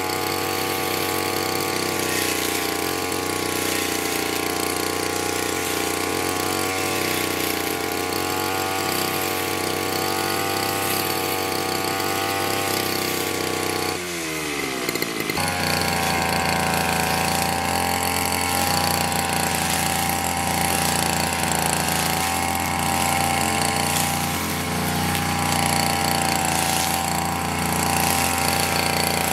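Small petrol engine of a RYU brush cutter running steadily at high speed while cutting grass. About halfway through, its pitch sags and then picks up again and holds steady.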